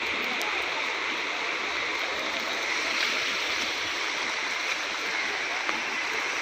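Floodwater rushing past in a steady, unbroken flow.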